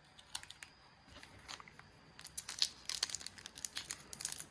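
Crinkling and tearing of a Pokémon booster pack's foil wrapper being handled, in quick crisp rustles that get busier and louder about two seconds in.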